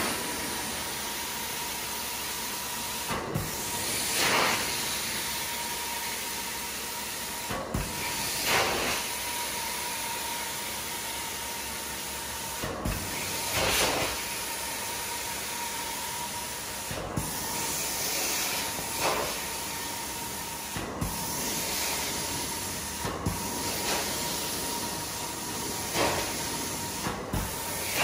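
Carpet-cleaning extraction wand spraying and vacuuming: a steady hiss with a constant high whine, swelling into a louder whoosh every four to five seconds as the wand is worked in strokes, with short breaks between.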